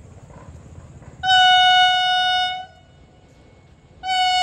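Horn of an approaching Vande Bharat Express trainset: one steady single-note blast of about a second and a half, then a second blast starting near the end.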